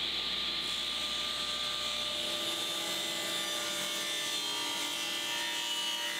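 Table saw ripping a narrow strip off a plywood board, with a steady sound of the spinning blade cutting through the wood.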